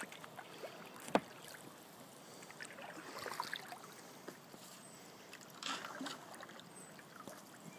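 Oar strokes splashing and dripping in the water as an inflatable dinghy is rowed, with one sharp knock about a second in and splashes around the middle and again near the end.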